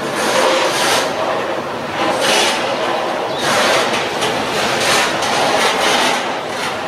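A freight train of tank wagons rolling past on the rails. The noise swells and fades about once a second as the wagons go by.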